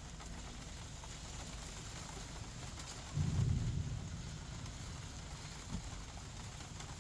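Rain and wind of a severe storm making a steady hiss, with a brief low rumble about three seconds in.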